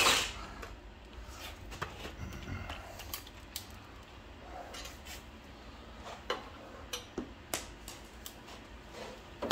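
Scattered light clicks and clinks of hand tools and small metal parts being handled, with a sharper clink near the end.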